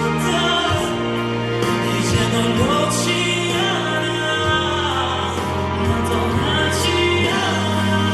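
Live pop ballad played over the PA: a singer's voice gliding between notes over sustained accompaniment with a steady low bass line.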